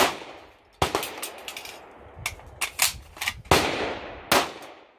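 Handgun fired in a string of shots, each a sharp crack with a short decaying tail. The loudest come at the start, about a second in, and twice more around three and a half to four and a half seconds in, with fainter cracks between.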